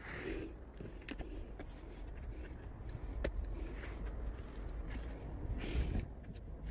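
Light handling noise and a few sharp plastic clicks as a push-in trim clip is fitted into the car's plastic engine undertray, over a steady low rumble.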